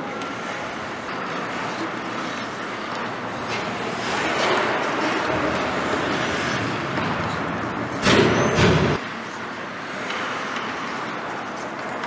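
Ice hockey play in an echoing rink: a steady wash of skates cutting the ice and sticks on the ice, with a loud burst of noise about eight seconds in that lasts about a second.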